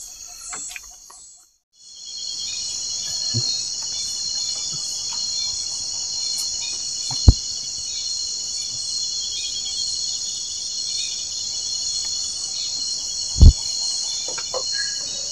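Chorus of crickets and other insects, a steady high shrill with a pulsing trill beneath, coming in abruptly about two seconds in after a short silence. Two sharp knocks stand out above it, about midway and again near the end.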